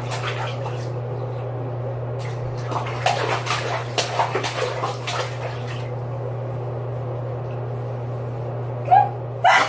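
A toddler splashing and patting bathwater in a tub: scattered splashes, busiest in the middle, over a steady low hum.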